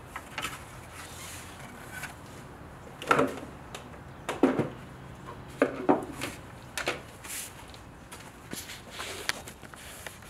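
Car center-console parts and hand tools being handled and set down on a wooden workbench: a string of irregular knocks and clunks, the loudest about three and four and a half seconds in.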